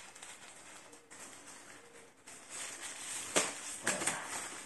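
Rustling and crinkling of a white packaging sheet being handled, starting about halfway through, with a few sharp crackles near the end.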